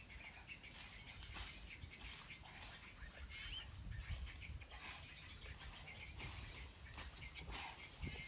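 Quiet dry-forest ambience: a few faint bird chirps, with scattered rustling footsteps on dry leaf litter.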